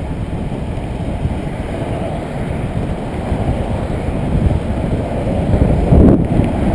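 Wind rushing over the microphone of a handlebar-mounted camera on a road bike at speed, a dull rumble mixed with tyre noise on the pavement. It swells to a louder gust about six seconds in.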